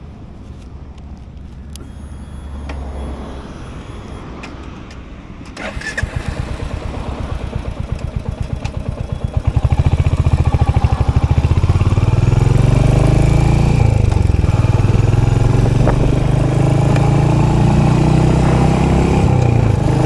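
Royal Enfield Hunter 350's single-cylinder engine being started: a sudden start about six seconds in, a few seconds of pulsing as it turns over and catches, then a loud steady idle from about ten seconds in. Before the start there is only a quieter low rumble.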